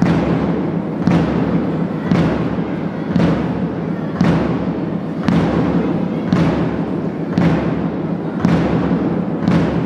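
A drum beaten at a steady marching pace, one stroke about every second, each stroke ringing briefly, over a continuous background din.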